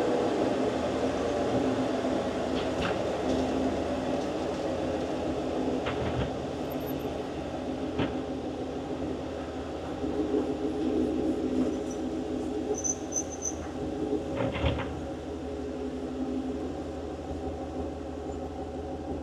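A 6.2-litre LS3 V8 with a hot cam, fitted in a restomodded AM General M1123 Humvee, heard from inside the cab as it drives slowly. The engine note eases off at the start, then runs steadily with a few short knocks and rattles from the cab.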